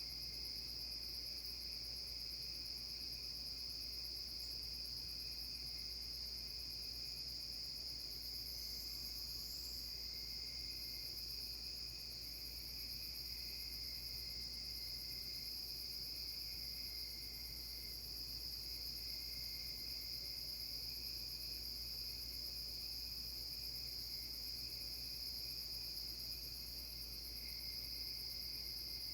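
Steady chorus of night-singing insects: a continuous high, even trill, with fainter, intermittent lower trilling underneath.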